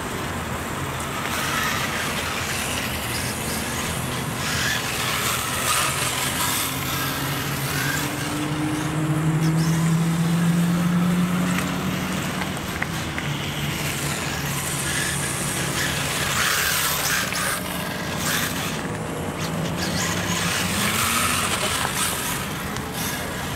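Radio-controlled model cars driving, their motors running with a pitch that rises and falls as they speed up and slow down, over steady tyre and surface noise.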